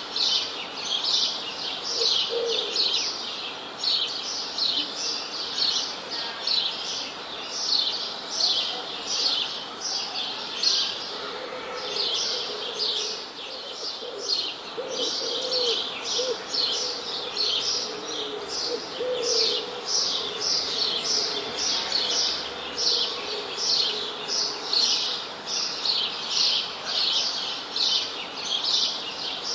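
Many small birds chirping rapidly and without a break, several high chirps a second, with some lower, warbling calls joining in through the middle.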